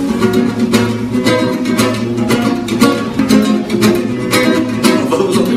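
Nylon-string classical guitar strummed in a steady run of chords.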